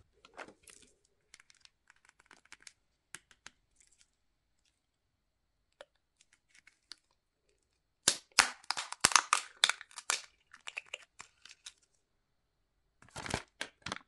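Wrapper of a King Egg chocolate egg crinkling and tearing as it is unwrapped by hand: a few light rustles, then a loud run of rapid crackles from about eight seconds in, and one more short burst of rustling near the end.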